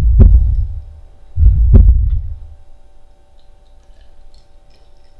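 Two loud, deep heartbeat thumps about a second and a half apart, each a doubled beat, dying away after each; a faint steady tone lingers after them.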